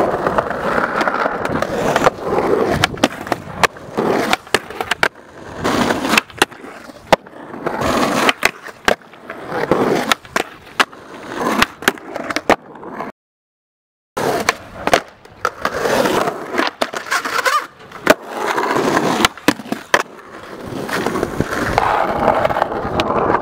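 Skateboard wheels rolling over rough asphalt, broken again and again by sharp pops, board clacks and landings, with the trucks grinding along a low ledge. The sound cuts out completely for about a second midway.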